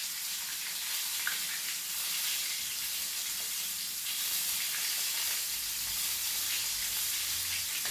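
Floured chicken pieces deep-frying in very hot oil: a steady sizzle.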